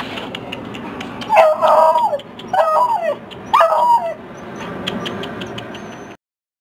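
A dog howling with its head raised: three short, wavering calls one after another.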